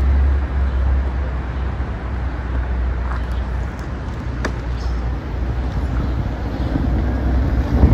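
Wind buffeting a phone's microphone while it moves along a road: a steady low rumble under a broad hiss.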